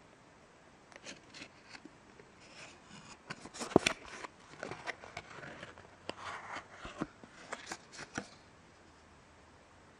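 Hands handling a cardboard cologne sample card and the small glass vial inside it: scattered rubs, scrapes and clicks, the sharpest about four seconds in, dying away after about eight seconds.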